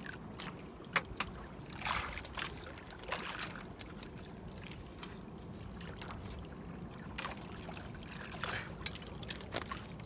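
Seawater trickling and splashing off a hauled-up wire-mesh fish trap, with scattered short splashes and light knocks over a steady low background rush.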